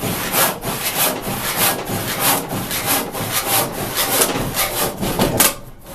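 Disston D-8 eight-point crosscut handsaw cutting through a 4x6 treated pine beam: even back-and-forth strokes, about three a second, with a short pause near the end. These are the last strokes of the cut that takes the beam in half.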